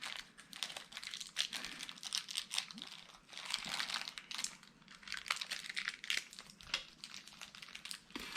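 Close handling of small plastic parts and packaging: irregular crinkling with many light clicks and taps, as a replacement Joy-Con joystick is picked out of the repair kit.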